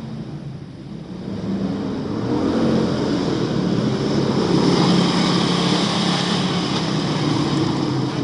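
Jeep Wrangler engine running steadily under load on an off-road trail, getting louder about two seconds in and holding there.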